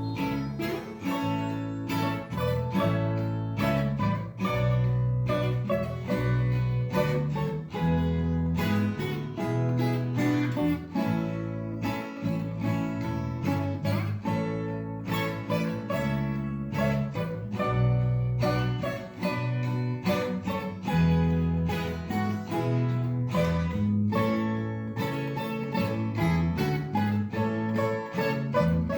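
Background music led by plucked acoustic guitar, with frequent plucked notes throughout.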